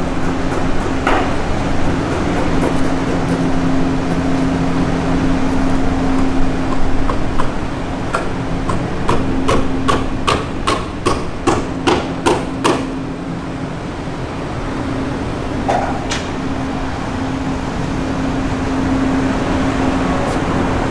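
A steady low mechanical hum under a constant rush of wind noise. About eight seconds in comes a quick run of around a dozen sharp knocks, two or three a second, lasting about five seconds.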